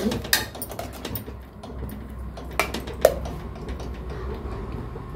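Metal spoon stirring a thick curry in a stainless steel pressure cooker pot, clinking against the pot a few times, loudest about three seconds in, over a low steady hum.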